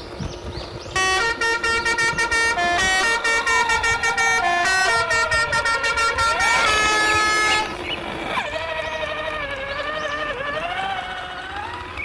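Truck horn honking: a fast string of short toots for about six seconds, ending in one longer blast. After that comes a quieter tone that wavers up and down in pitch.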